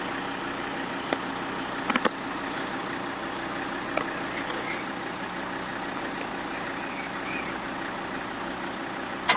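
A vehicle engine idling steadily, with a few light clicks.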